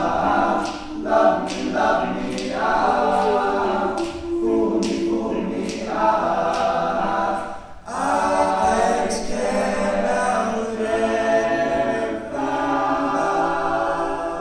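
All-male a cappella group singing, a lead voice over close-harmony backing voices, with sharp regular clicks about twice a second keeping the beat in the first half. The voices break off briefly just before the middle and come back in together.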